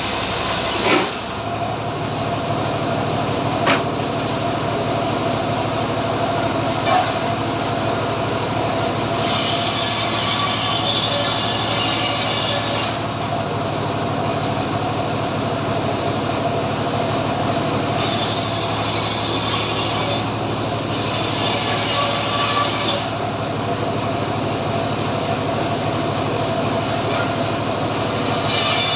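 Engine-driven homemade sawmill running steadily while its saw cuts a teak log, the cutting noise growing louder and hissier in three long stretches. A few sharp knocks in the first seven seconds.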